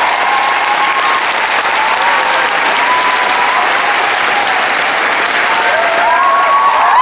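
Theatre audience applauding steadily at a musical's curtain call.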